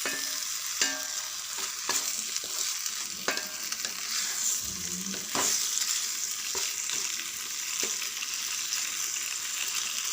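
Cooked pasta being stirred through a tomato-onion sauce in a hot pan: steady sizzling, with scattered scrapes and taps of the stirring utensil against the pan.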